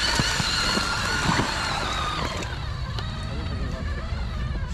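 Electric motor and gears of a 1/6-scale RC Willys crawler whining as it drives through a shallow creek, with short splashes from the tyres in the water. The whine fades about two seconds in.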